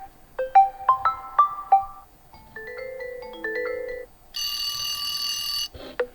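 OnePlus Nord N30 default ringtones previewed one after another, each cut off as the next begins: a short marimba-like melody of quick, decaying notes, then a softer electronic melody, then about four seconds in a steady buzzy electronic tone lasting over a second.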